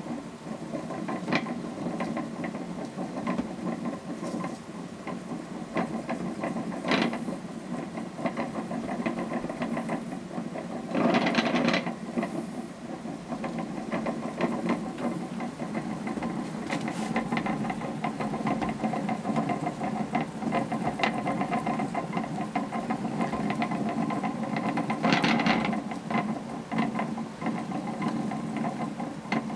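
Old hand-cranked wooden reel (haspel) with an iron gearwheel being turned steadily: a continuous fast clatter of the gear teeth and rattling frame, with two louder rattling spells.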